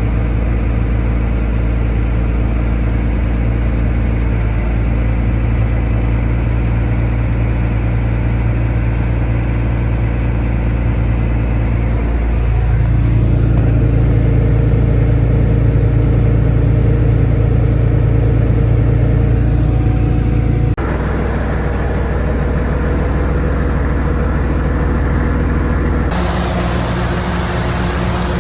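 Diesel engine of farm machinery running steadily at a constant note. It grows louder about halfway through, and the sound changes abruptly twice near the end, the second time with much more hiss.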